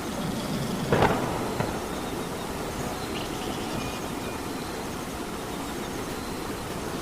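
Steady rain, with one sharp, loud impact-like sound about a second in and a fainter one shortly after.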